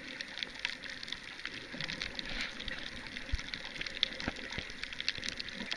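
Underwater ambience picked up by a camera below the sea surface: a steady hiss with many small scattered clicks and crackles.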